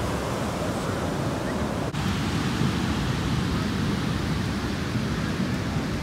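Heavy ocean surf breaking close by, a steady rushing noise, with a momentary drop-out about two seconds in.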